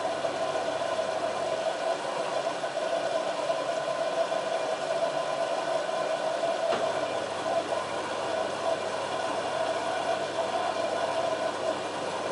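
LG F1443 washing machine running with a steady motor hum and a whine, with a light click about seven seconds in.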